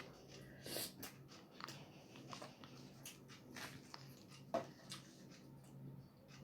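Close-miked eating sounds of roti and tadka being chewed: soft wet smacks and mouth clicks at irregular moments, with a sharper one about four and a half seconds in.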